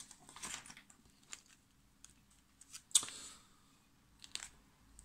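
Small metallic clicks and clinks of soldering iron tips being handled while a tip is chosen and swapped, about a dozen scattered ticks with a sharper click about three seconds in.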